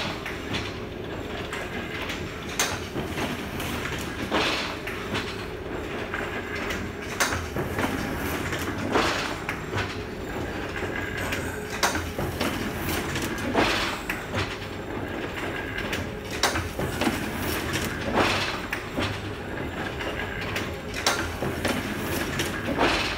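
Hand-fed flatbed cylinder letterpress printing press running, with a steady mechanical clatter and a loud clank about every two to three seconds in a repeating uneven rhythm.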